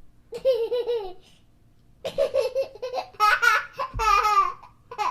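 A baby laughing in two bouts: a short run of rhythmic giggles, then after about a second's pause a longer bout of laughter that climbs into high squeals near the end.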